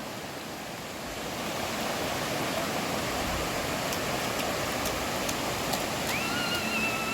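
Waterfall water rushing, a steady noise that grows a little louder about a second in. A short, high, steady tone sounds near the end.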